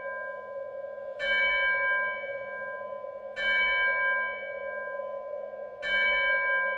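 Bell-like tones struck three times, about two seconds apart, each left ringing over a steady low drone.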